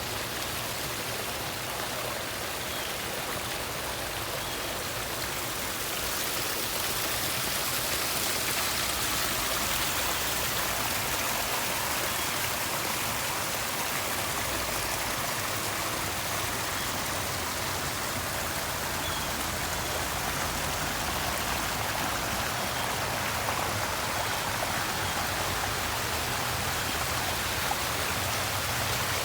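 Water running and splashing steadily as a continuous rush, slightly louder after about six seconds.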